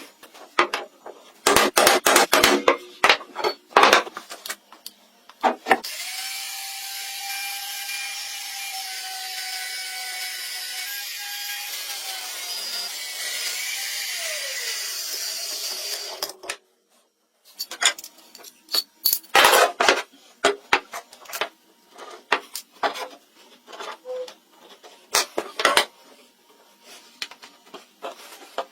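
Woodworking tools on wood: bursts of rapid scraping strokes and knocks, then a power tool running steadily for about ten seconds before cutting off suddenly, followed by more scattered strokes and knocks.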